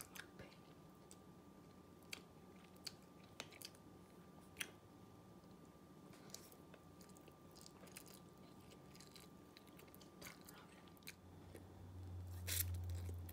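A child eating instant ramen noodles: faint, scattered wet mouth clicks and slurps as she sucks up and chews the strands. Near the end a low rumble comes in with a couple of louder clicks.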